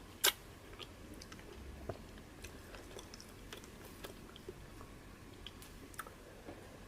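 Close-miked eating: a man chewing fufu and peanut soup, with small wet mouth clicks scattered throughout. One sharp click comes about a quarter second in.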